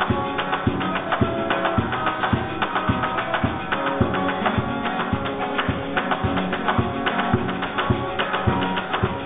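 Choir singing a Kiswahili song over a steady percussive beat of about two strikes a second.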